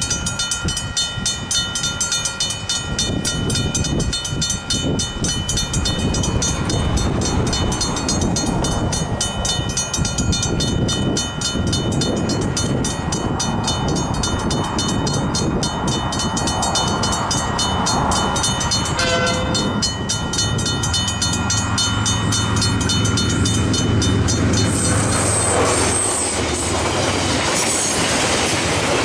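Griswold mechanical level-crossing bells ringing with rapid, even strokes. A freight train approaches, sounding a brief horn about two-thirds of the way in. The locomotive's engine then rises to a steady drone and the hopper wagons rumble over the crossing near the end.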